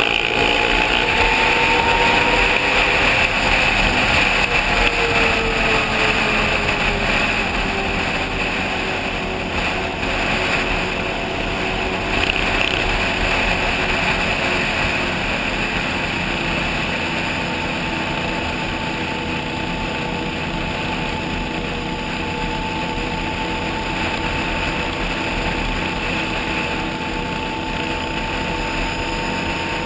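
Can-Am Outlander 800 ATV's V-twin engine under way, its pitch rising in the first couple of seconds as it accelerates, then easing back and settling into a steady cruise, over a steady rushing noise.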